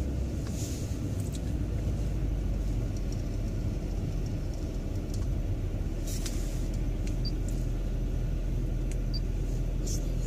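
A car running along a wet road, heard from inside the car: a steady low engine and road rumble with tyre hiss and a few brief swishes.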